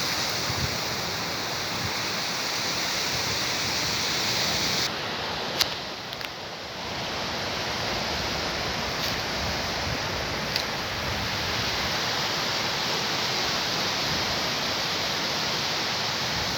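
Steady rush of sea surf, an even wash of noise with no break, and a brief click about five and a half seconds in.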